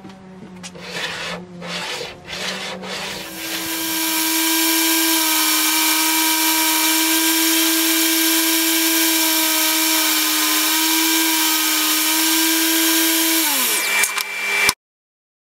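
DeWalt DWE7492 table saw running up to a steady high whine after a few scraping and knocking handling noises. Near the end it is switched off, and its pitch falls as the motor winds down before the sound cuts off abruptly.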